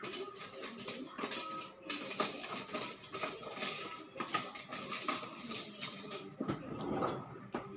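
Busy rattling and rustling as things are rummaged through in a container, a quick uneven run of shakes and clicks that eases off near the end.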